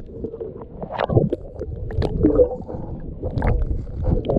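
Muffled underwater sound picked up by a camera held beneath the sea surface: low rumbling and gurgling water with scattered sharp clicks and knocks.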